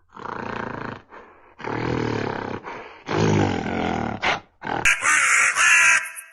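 A series of separate animal calls, each under a second long with short gaps between them; the last, about five seconds in, is higher and brighter than the others.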